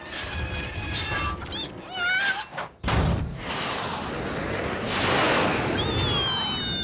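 Cartoon sound effects of a robot cat clawing metal: screeching scrapes over the first couple of seconds, then a loud crash and a long rushing noise with a few falling whistling tones near the end.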